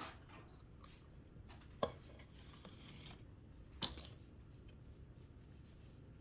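Slime being stretched and handled: faint scattered clicks and crackles, with two sharper pops about two and four seconds in.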